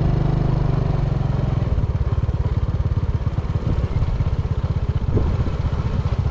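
Motorbike engine running close by; about two seconds in its steady drone changes to a rapid pulsing beat.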